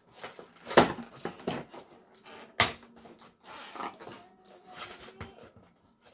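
Cardboard box and plastic insert of a toy package being handled and pulled apart: irregular rustling and clicking, with two sharp snaps, one about a second in and one a couple of seconds later.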